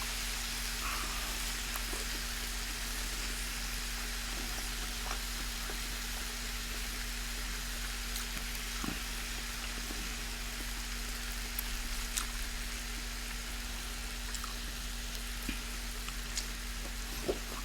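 Steady background hiss with a faint low hum, and now and then a soft click of eating.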